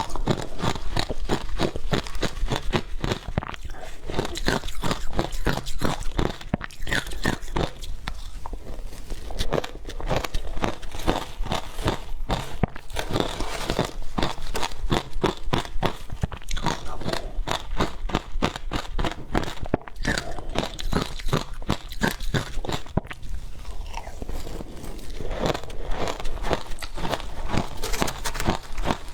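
Ice being bitten and chewed with a rapid run of crisp crunches, several a second: frozen matcha ice being eaten.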